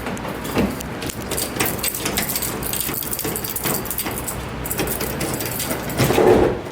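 Dense, irregular crackling and clicking of items and packaging being handled while a drink vending machine is restocked, with a heavier thump about six seconds in.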